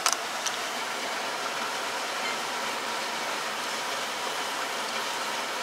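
Steady hiss from a pot of chicken curry simmering on a lit gas burner while it is stirred with a wooden spatula, with two short clicks in the first half second.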